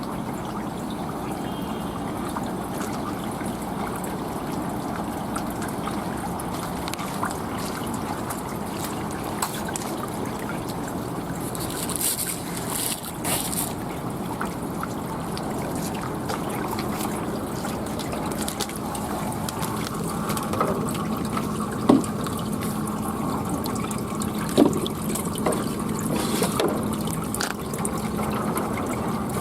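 Water trickling steadily, with a few sharp ticks in the last part.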